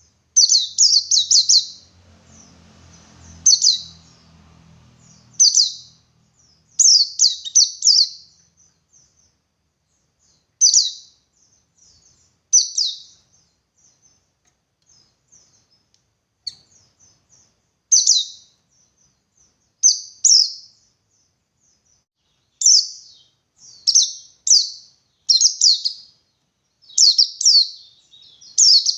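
White-eye (pleci buxtoni) singing its 'ngalas' song: short clusters of rapid, high chirps, repeated every second or two with irregular pauses.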